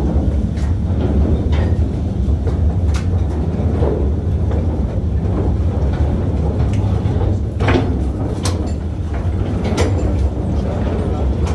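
Train of steel mine cars rolling on narrow-gauge rails in a mine tunnel: a steady heavy rumble with irregular sharp metal clacks from the wheels and cars.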